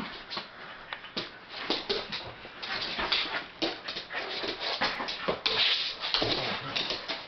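Two dogs play-fighting on a dog bed: a run of short whimpers and yips mixed with scuffling, the densest and loudest stretch a little past the middle.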